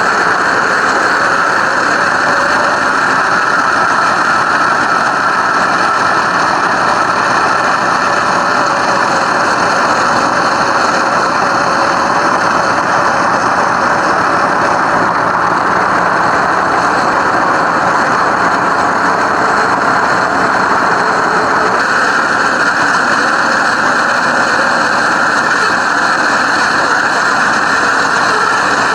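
Simulated car engine sound from an FMS RC car's sound module, running steadily.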